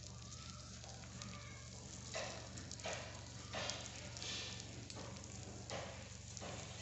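Small metal spatula stirring diced beetroot and carrot in a miniature iron karai, scraping and tossing the pieces in regular strokes about every 0.7 seconds from about two seconds in, over a faint sizzle of the vegetables frying in oil.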